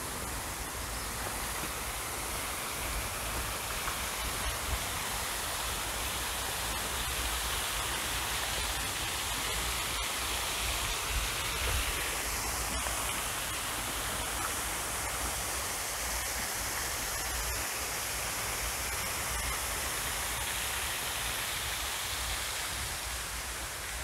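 Steady hiss of splashing water from a tiered garden fountain, a little stronger about halfway through, over a low rumble.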